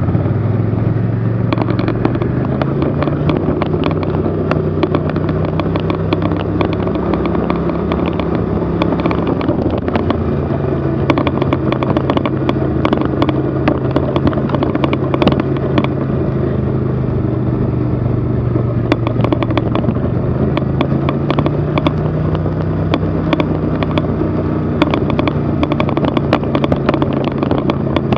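Engine of a vehicle running at low trail speed over packed snow, its low hum stepping up in pitch a couple of seconds in as it speeds up, dropping about ten seconds in and rising again later. Frequent rattles and knocks run through it.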